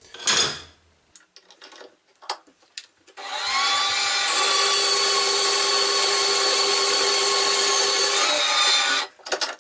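Contimac portable metal-cutting bandsaw starting up, running steadily as its blade cuts through a workpiece clamped in the vise for about six seconds, then switching off and winding down near the end; a test cut. A few knocks and clicks from handling the vise come before the motor starts.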